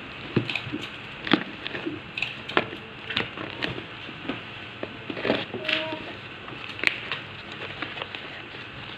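Cardboard shipping box being handled and opened by hand, its flaps folded back: irregular crackles, taps and knocks of cardboard and paper.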